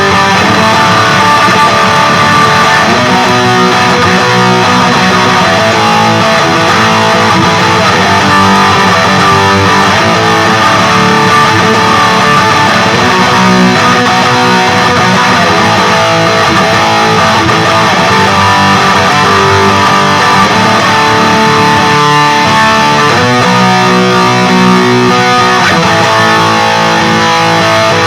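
Electric guitar with active pickups played through a Peavey Vypyr 15 modelling amp on its high-gain XXX amp setting, riffs and chords going on without a break.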